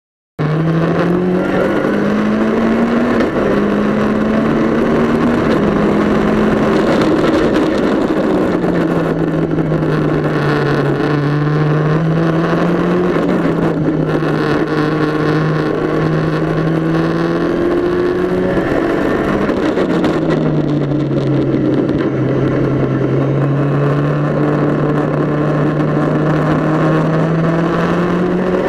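Mitjet race car engine heard from inside the cockpit at speed on track, its note climbing through the gears with drops at each shift and falling away when slowing for corners, over a steady rush of wind and road noise. The sound comes in just after the opening.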